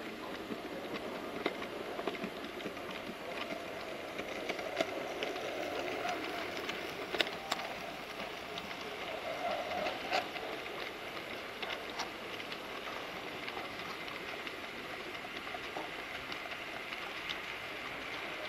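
Model railway goods train, a steam-type locomotive hauling a long rake of wagons, rolling steadily along the layout's track with scattered sharp clicks from the wheels and couplings.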